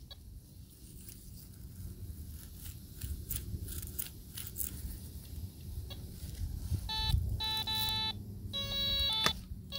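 Dr. Otek MT9s kids' metal detector beeping in pinpoint mode. From about seven seconds in, a rapid, chirping electronic tone sounds in short bursts, the signal that a coin lies right under the coil.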